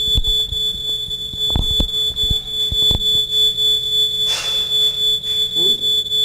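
Smoke-alarm buzzer of the model house sounding a steady high-pitched tone, set off by smoke reaching its sensor. A few short knocks come in the first three seconds, and a brief hiss about four seconds in.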